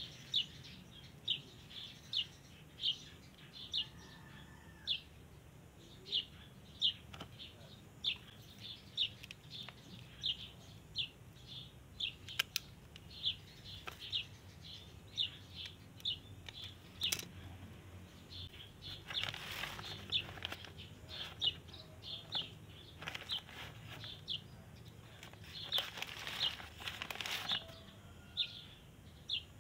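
A bird repeating a short, high chirp about twice a second, steadily throughout. Twice in the second half there is a few seconds of rustling.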